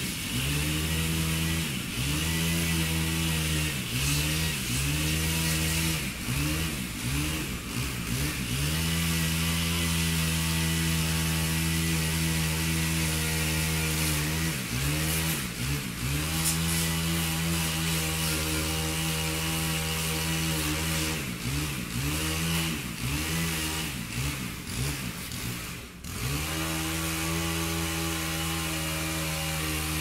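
Chainsaw running continuously, its pitch repeatedly dipping and climbing back in quick runs, then holding steady over the last few seconds.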